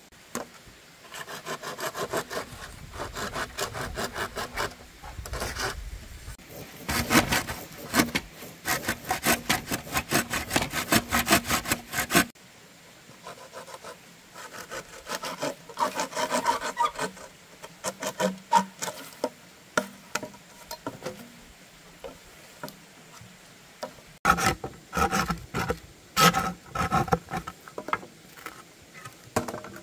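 Hand saw cutting a bamboo pole in quick repeated strokes, in three spells; the first stops suddenly about twelve seconds in, and the last comes near the end.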